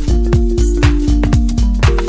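Background electronic dance music with a steady four-beats-a-second kick drum and held synth notes.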